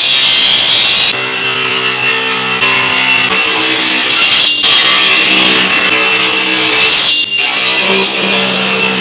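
A woodworking power tool, such as a table saw or planer, running steadily while cutting through hardwood. It breaks off for an instant twice.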